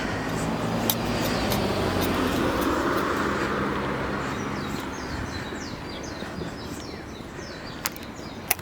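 A car passes, loudest two to three seconds in, then fades. From about five seconds in comes a run of quick, high, bird-like chirps, and a couple of sharp clicks sound near the end.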